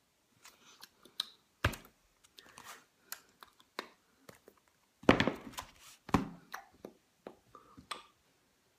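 Handling noise as a paperback travel guide is moved about and put aside: scattered clicks, rustles and knocks, with a sharp thump about a second and a half in and the loudest bumps around five to six seconds in.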